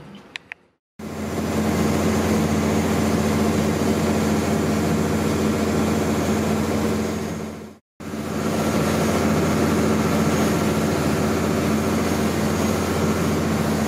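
A boat's engine running steadily, a constant drone with a low hum. It starts about a second in, breaks off for a moment about eight seconds in, then resumes.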